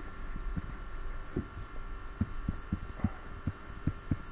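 Soft low thuds, irregular, two or three a second, from a stylus tapping a drawing tablet as a word is handwritten, over a steady electrical hum.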